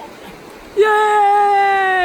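A creek's rushing water, then, about a second in, a long, loud held cheer of "yay!" from a hiker, sliding down in pitch at its end.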